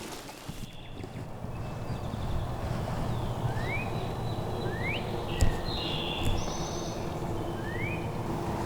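Songbirds calling in woodland, with several short rising whistled notes repeated every second or two, over a steady low rumble.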